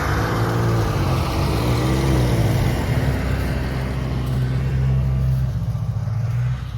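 A vehicle engine running at a steady pitch under a loud rushing noise, the level falling off near the end.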